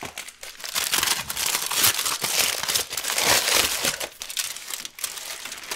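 Aluminium foil crinkling and crackling close to the microphone as a foil-wrapped gyro is pulled open by hand: a dense run of small crackles, busiest mid-way and easing off near the end.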